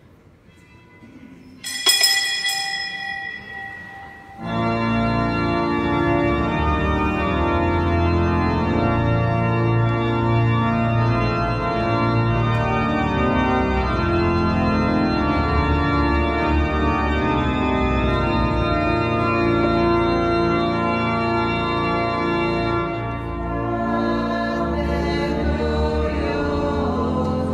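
A single bright ringing strike that dies away over about two seconds, then a church organ starts playing sustained chords; near the end voices begin singing over the organ.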